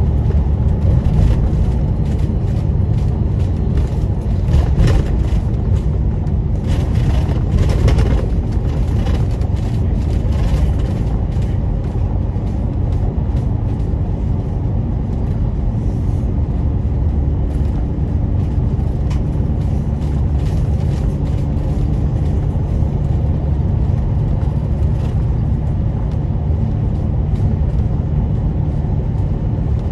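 A double-decker bus travelling at speed, heard from on board: a steady low rumble of engine and road noise, with stretches of hiss and rattle in the first ten seconds or so.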